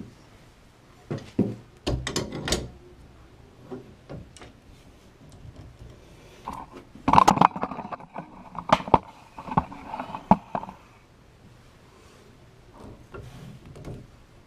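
Channel lock pliers and a deep-well socket clicking and scraping on the old Moen push-pull diverter valve as it is worked loose. The sharp clicks come irregularly, loudest in a cluster about seven to eleven seconds in.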